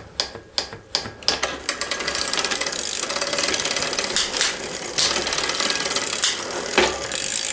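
Bicycle drivetrain cranked by hand with the rear wheel spinning in a repair stand: a few separate clicks, then from about a second and a half in a steady, fast rattling of chain, chainring and freewheel. The drivetrain is noisy, and the bike's parts are very dry and unlubricated.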